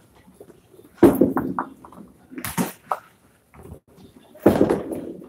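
Candlepin bowling alley sounds: small balls striking the wooden lanes and candlepins clattering, heard as three sharp crashes about a second and a half apart.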